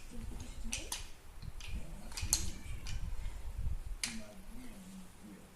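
Scattered sharp clicks and clatter of a plastic block toy train being played with, and a faint, muffled, wavering cat meow near the start and again, longer, about four seconds in: a shut-in cat calling to be let out.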